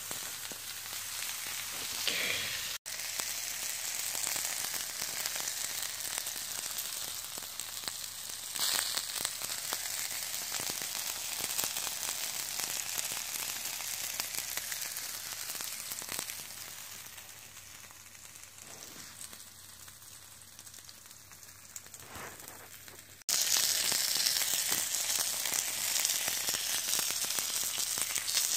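Pieces of pork neck and sausages sizzling on a hot thick griddle, a steady frying hiss. It turns quieter for a few seconds past the middle, then comes back abruptly louder near the end.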